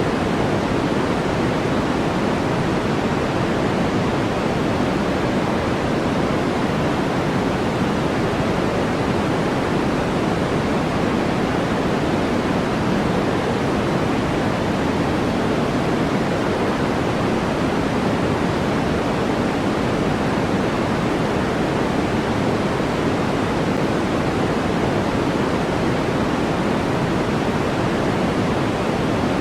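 Steady generated noise track for sleep and focus: an even, unchanging hiss, heavier in the low and middle range and thinner toward the top.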